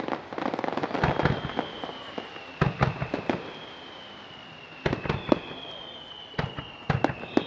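Fireworks finale: a rapid cluster of aerial shell bursts and crackles, then single booms every second or so. Faint high whistles glide slowly down in pitch from about a second in.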